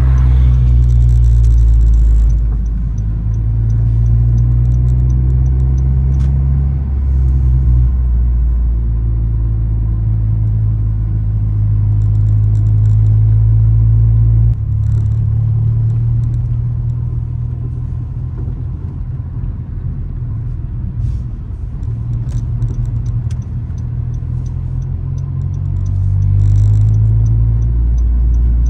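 9th-generation Honda Civic Si's 2.4-litre four-cylinder with an aftermarket downpipe and exhaust, heard from inside the cabin on the move: a steady low drone. Its pitch steps a few times and changes suddenly about halfway through. It eases off for several seconds and swells again near the end.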